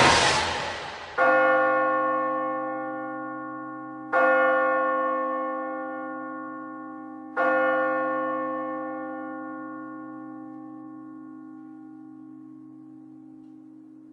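Church bell tolling three times, about three seconds apart, each stroke ringing on and slowly dying away. A loud rushing noise fades out just before the first stroke.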